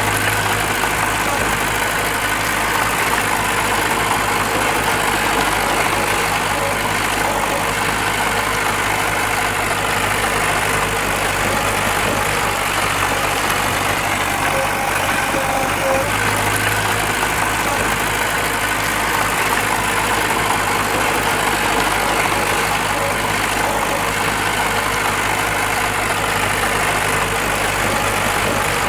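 Diesel engine of earthmoving machinery running steadily at an even, unchanging pitch.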